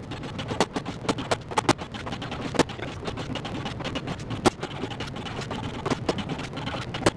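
Rapid, irregular sharp metallic clicks and clacks, several a second, as a cordless power tool works along the clecoed edge of an aluminium aircraft wing skin during riveting.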